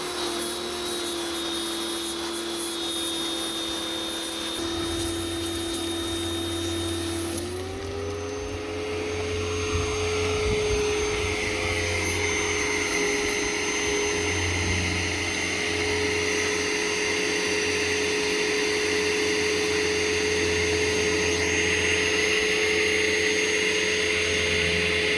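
An electric shop tool's motor running steadily with a whine that steps up in pitch about seven seconds in, then holds level.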